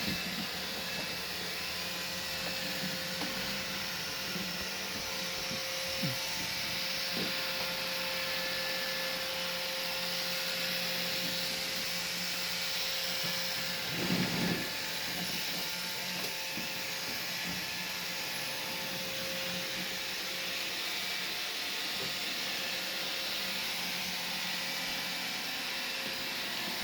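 Roomba robot vacuum running steadily, its motor and brushes giving an even hum with a few constant tones. There is a brief knock about halfway through.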